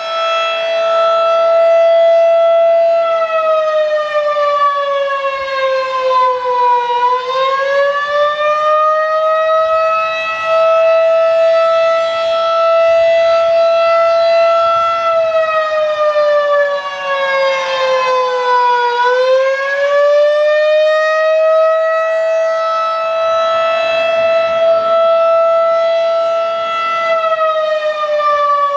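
Federal Signal 2001-DC electromechanical siren sounding a single tone. It holds a steady pitch, then sags and climbs back twice, about twelve seconds apart, and starts to sag again near the end.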